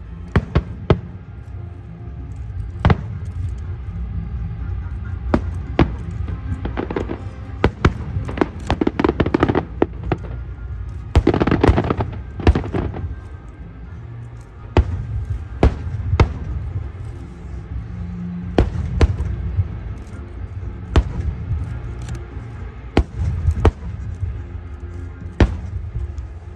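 Aerial fireworks bursting: a steady run of sharp bangs over a low rumble, with a dense stretch of rapid crackling bangs about 7 to 13 seconds in.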